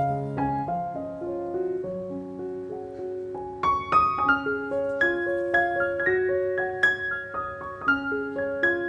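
Background solo piano music: a slow, gentle melody of single struck notes over a few low held notes.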